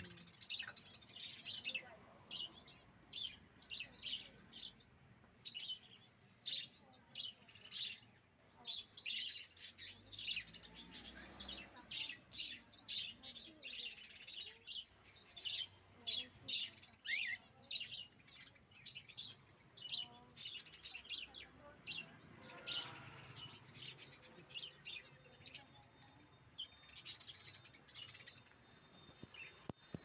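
Caged pet birds chirping: a busy, continuous run of short, high chirps, several a second, from a mix of birds. A faint steady high tone joins near the end.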